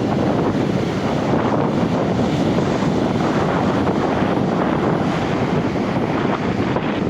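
Strong wind buffeting the microphone over ocean surf breaking on the shore, a loud steady rush without distinct single crashes.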